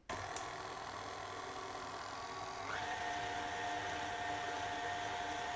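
KitchenAid Artisan stand mixer's motor running as its beater mixes thick brownie batter briefly, just until the flour is worked in. About two and a half seconds in it is shifted to a higher speed, and its steady whine rises in pitch and gets a little louder.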